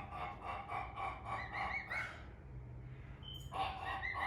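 A man imitating a male emu's grunting call: a rapid run of short, repeated calls, about five a second. They break off about two seconds in and start again near the end. The imitation is a poor one.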